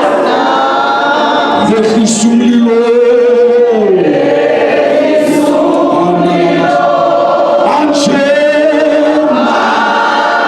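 Church congregation singing together, many voices holding long notes of a gospel song.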